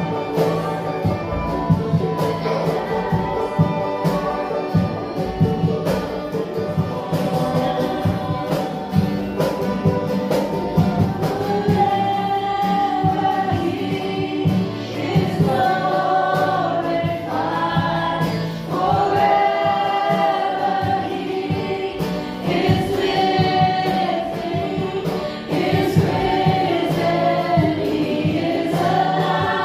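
Christian worship music: a group of voices singing over instrumental accompaniment with frequent percussive strokes.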